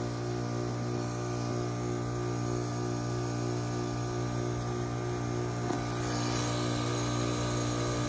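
2015 5-ton Lennox Merit heat pump outdoor unit running in defrost mode: a steady, tonal electrical hum with a hiss. The hiss grows louder about six seconds in.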